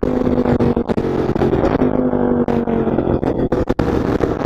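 Sportbike engine running at a steady cruise, heard onboard under heavy wind blast on the microphone, with its pitch holding fairly even.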